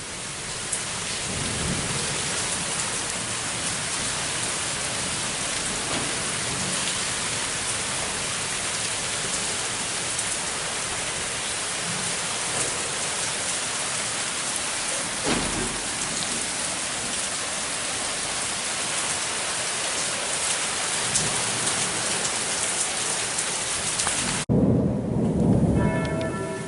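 Summer rain falling steadily, with low rumbles of thunder now and then. Near the end the rain cuts off suddenly and church bells are heard tolling.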